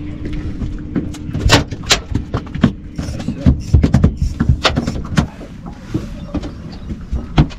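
Irregular clicks and knocks of fishing gear being handled and people moving on a small boat's deck. A steady low hum runs underneath and stops about two and a half seconds in.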